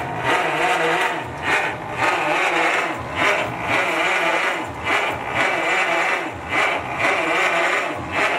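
1925 Ford Model T's four-cylinder engine being turned over by its electric starter, a steady whir that swells and dips in an uneven rhythm. The engine cranks but does not fire, because no fuel is reaching it yet.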